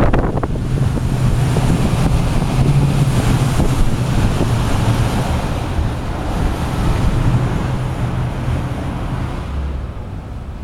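Strong gusty wind buffeting the microphone, a loud continuous rumble that eases off near the end.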